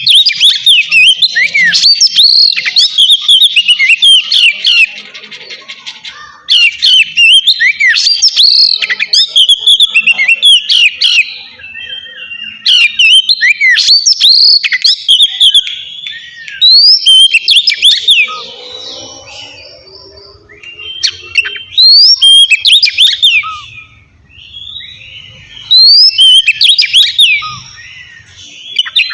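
Oriental magpie-robin (kacer) singing its loud, clear 'ngeplong' song: phrases of a few seconds of rapid whistles and sliding notes, with short pauses between phrases.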